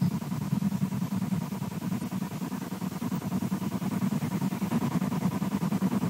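Low, irregular fluttering throb, the 'waffling' sound, with a faint steady hum above it.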